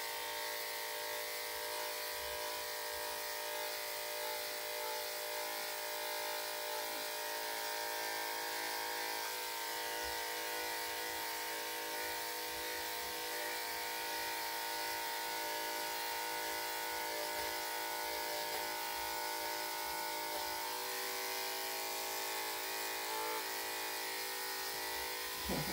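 Electric dog grooming clippers running with a steady, unbroken buzz while shaving matted coat off a Yorkshire Terrier puppy.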